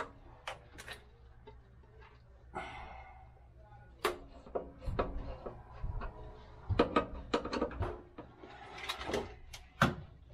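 Scattered clicks, knocks and a brief scrape of sheet-metal access covers being handled and fitted back over the thermostat panels of an electric water heater, with a screwdriver at work.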